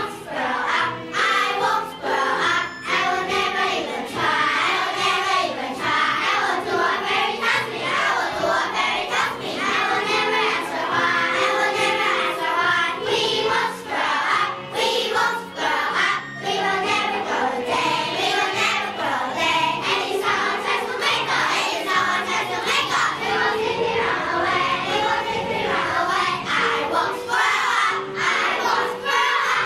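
A choir of young schoolchildren singing together.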